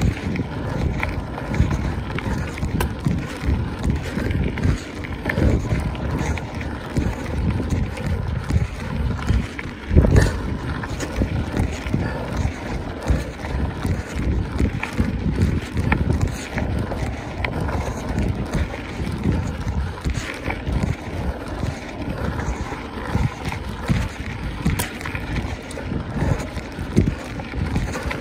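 Wind buffeting a camera microphone on a mountain bike being ridden, a gusty rumble with many irregular knocks and rattles from the bike, and a louder thump about ten seconds in.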